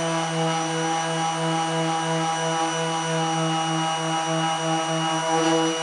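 Corded random orbital sander running steadily while sanding Bondo body filler on a car hood: an even motor hum with a faint high whine above it.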